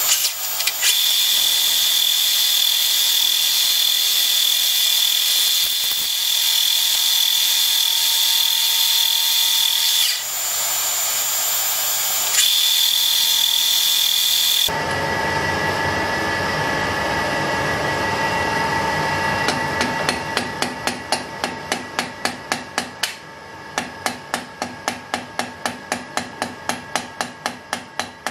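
Metal lathe cutting a part, a steady high-pitched whine over the machine's running noise, which stops abruptly about halfway through. A lower-pitched running sound follows, and in the last third a regular ticking about three times a second.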